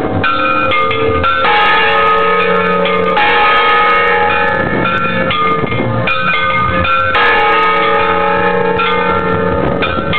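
Church bells ringing a festive repique at close range in the belfry: several bells struck in quick succession, with a fresh set of strikes every second or two and their tones ringing on and overlapping.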